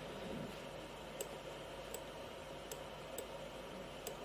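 Computer mouse clicking a handful of times, single sharp clicks roughly a second apart, over a faint steady room hiss.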